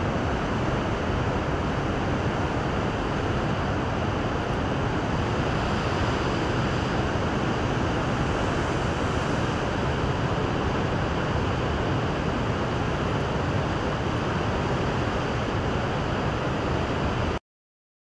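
Steady rushing noise of heavy surf and wind on the microphone, cutting off abruptly near the end.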